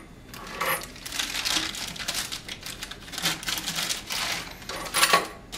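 A small plastic bag of lock hardware crinkling and rustling as it is handled and opened, in irregular bursts.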